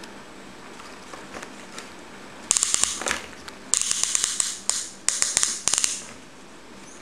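A plastic toy loader being handled, with its parts moved by hand: a run of sharp plastic clicks and scraping bursts starting about two and a half seconds in and stopping about a second before the end.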